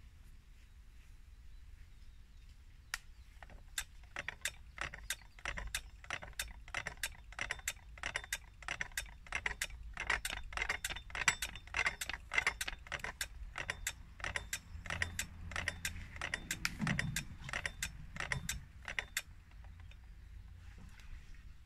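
Striking mechanism of a KLD-4013 slow-striking railway level-crossing bell, running on 19 V with the bell dome off: the hammer mechanism clicks and clacks in a quick regular rhythm, starting about three seconds in and stopping near the end. The uploader describes the bell as being in poor technical condition.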